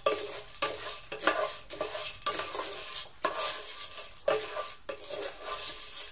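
Wooden spatula stirring unpopped popcorn kernels in hot oil in a nonstick pan: the kernels rattle and scrape against the pan in repeated strokes, a little more than one a second, as they are coated in oil before popping.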